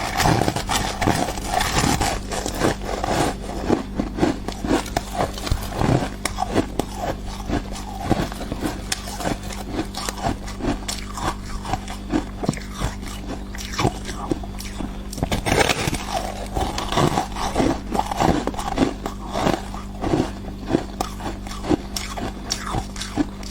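Thick, crisp slab of freezer frost ice being bitten and crunched repeatedly at close range, in quick irregular crunches over a steady low hum.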